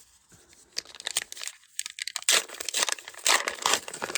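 Foil wrapper of a Star Wars: Unlimited booster pack crinkling and tearing as it is opened, a run of sharp crackles that grows loudest in the second half.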